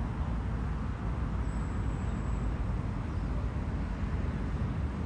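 Outdoor city ambience: a steady low rumble of distant road traffic.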